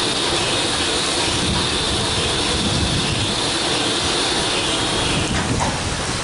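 Merchant Navy class steam locomotive 35006 moving slowly under thick clouds of its own steam, with a loud, steady hiss of steam that stops about five seconds in.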